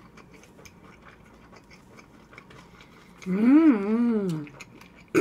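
Closed-mouth chewing of a full mouthful of food, with small wet clicks throughout. A bit past halfway comes a loud hummed "mm-mmm" in two rising-and-falling swells, a sound of enjoyment made through closed lips.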